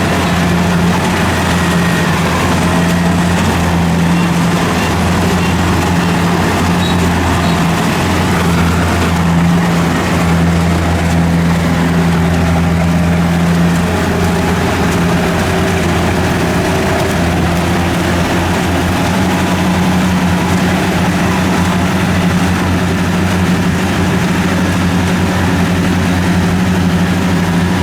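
Kubota DC70 combine harvester's diesel engine running steadily with a low drone.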